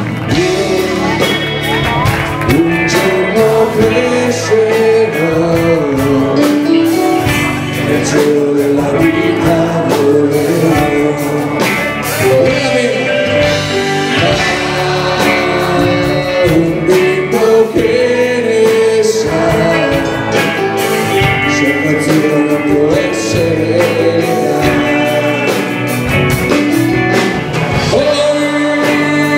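Pop-rock band playing a song live, with a singer over electric guitar, keyboard and drums.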